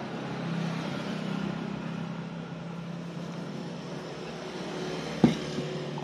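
Steady background hum of road traffic, with one sharp knock about five seconds in as a glass tea mug is set down on the table.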